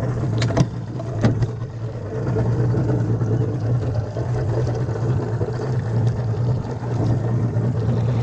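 Yamaha V6 175 outboard motor running with a steady low hum, with a few sharp clicks in the first second or so.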